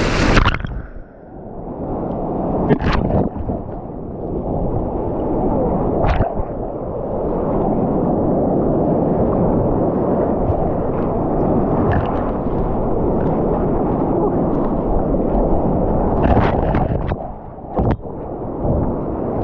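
Big whitewater rapid waves crashing over the deck of a sea kayak. The water is heard muffled and dull as waves wash over the microphone, with a sharper slap or splash every few seconds.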